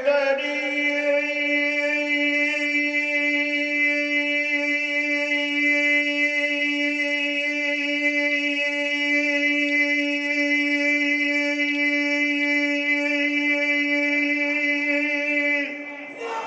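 A man's voice holding one long sung note into the microphones for about fifteen seconds, steady in pitch with a slight waver, stopping shortly before the end. It is the drawn-out wail of a zakir's majlis mourning recitation.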